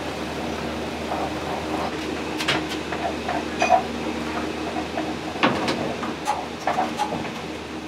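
Kitchen clatter: scattered clinks and knocks of dishes and utensils, one clink near the middle ringing briefly, over a steady low hum.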